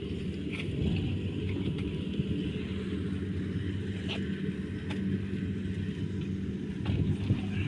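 Farm machine's diesel engine running steadily at a constant speed, with a few short sharp knocks.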